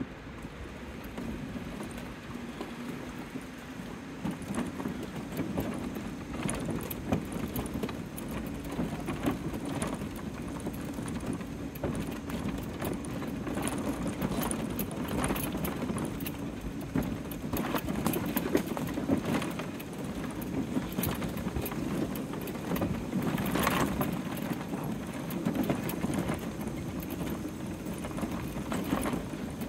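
TGA Breeze S4 GT electric mobility scooter driving along a rough dirt track, its drive motor giving a steady hum. Frequent clicks and rattles come from the scooter going over the bumpy ground.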